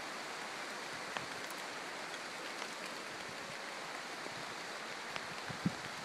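Steady hiss of rain falling on rainforest foliage, with a few faint ticks of drops and some low thumps near the end.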